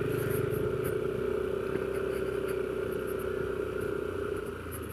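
Yamaha All New NMAX 155 scooter's single-cylinder engine running steadily while riding, with a steady hum over the engine note, easing off a little near the end.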